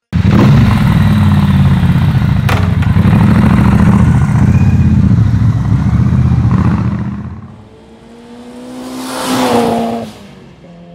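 Motorcycle engine running loud at high revs, fading out after about seven seconds; near the end a second rev swells up with a slightly rising pitch and dies away.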